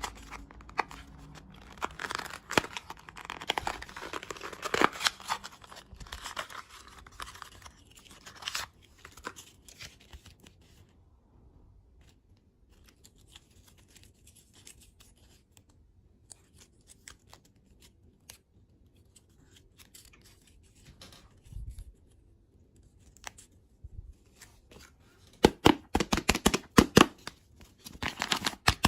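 Candy packaging being torn open and crinkled by hand, with a quieter stretch of scattered ticks and a burst of rapid sharp clicks near the end.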